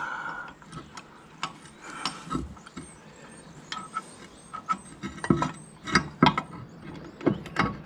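Irregular metallic clicks, clinks and knocks of tractor brake-latch parts being worked into place by hand, with a cluster of louder knocks in the second half.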